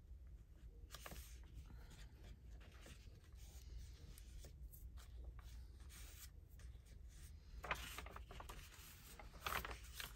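Faint rustling and soft scraping of paper being handled and placed on a journal page, with a few short strokes about a second in and a cluster near the end, over a low steady room hum.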